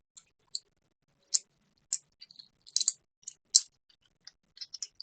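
Light, sharp metallic clicks and ticks from small tools working on a modified American Lock 1100 padlock, about a dozen at irregular intervals, the loudest about three and a half seconds in.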